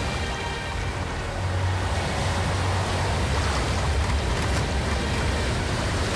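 Storm at sea: rough waves surging and breaking with rain, over a deep steady rumble.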